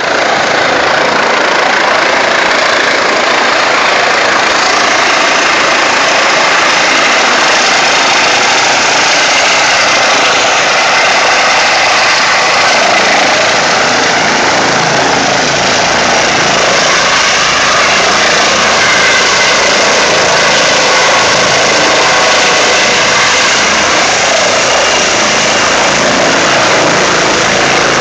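Eurocopter EC135 medical helicopter approaching and landing: steady, loud noise from its rotors and twin turbine engines, with a faint whine in it.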